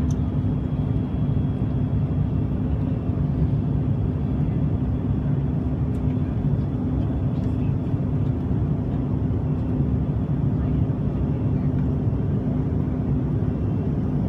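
Steady cabin noise of a Bombardier CRJ-700 climbing after take-off: its rear-mounted GE CF34 turbofans and the airflow make a constant low rumble with a steady hum through it.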